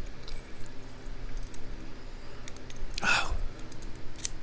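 Small, scattered metallic clicks and taps from a mortise lock cylinder and tools being handled during disassembly, with a short vocal sound about three seconds in and a low hum underneath.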